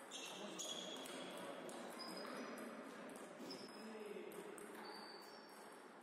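Table tennis ball clicking off bats and table in rallies: a string of sharp knocks, several followed by a short high ping, over a murmur of voices.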